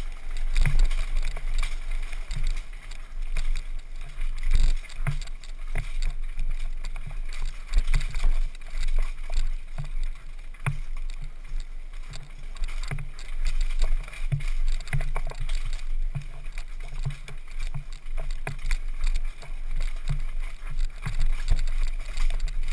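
Downhill mountain bike rattling and knocking over roots and rocks at speed, with wind rumbling on the microphone. The knocks come irregularly, several a second at times.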